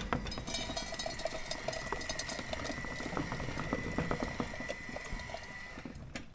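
Small DC motor turning the treat dispenser's auger, a thin steady whine that stops near the end, over many small crackling clicks.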